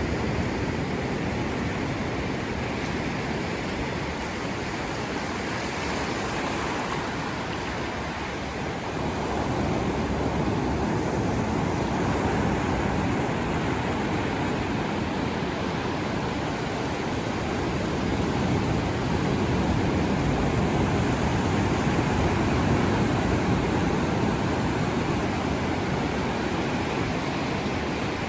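Ocean waves washing in, a steady rushing surf that swells gently about a third of the way in and again later.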